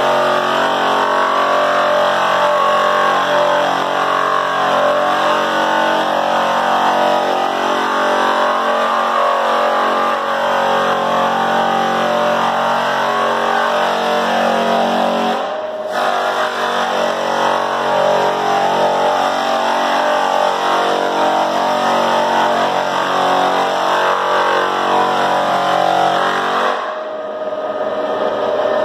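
American Clarke split-drum floor sander running and sanding a hardwood floor: a steady motor hum over the rasp of the drum, briefly dipping about halfway through. Its sandpaper has not been tightened down well enough on the drum.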